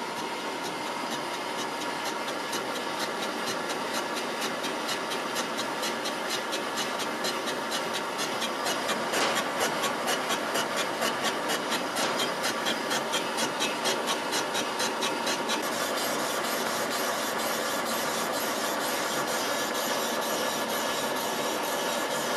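Milling machine turning an auto-feed boring head as its cutter skims the face of an aluminium air-cooled Volkswagen cylinder head: a steady machining noise with a rhythmic ticking about three times a second. The ticking stops about two-thirds of the way through while the cut runs on steadily.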